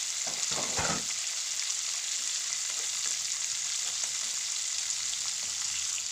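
Fish pieces sizzling steadily in hot oil in a steel karahi, being lightly fried. A metal slotted spatula scrapes and knocks against the pan about a second in.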